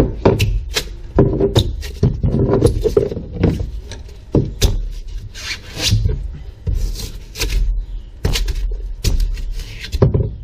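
Claw hammer chopping and prying at old foam and fiberglass under a boat's dash: a dozen or more sharp strikes at an irregular pace, with scraping between them.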